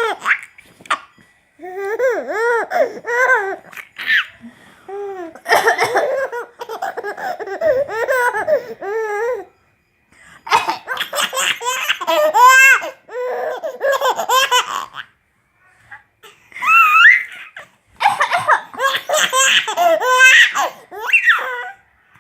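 A baby laughing in repeated bouts with short pauses between, giggles and belly laughs, in response to his grandmother's coughing, which he takes for play.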